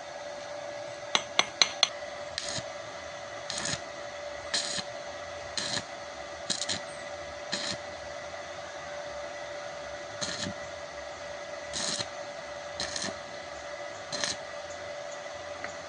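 A small inverter stick-welding machine's cooling fan runs with a steady whine. Over it come four quick sharp metallic clinks a little after the start, then short scratchy bursts about once a second, on and off.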